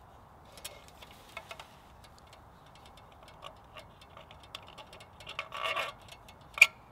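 Small metal clicks and light rattles of a paraffin storm lantern being handled, lifted and tipped up, its wire frame and tin base clinking, with a brief rustle about five and a half seconds in and one sharp clink near the end.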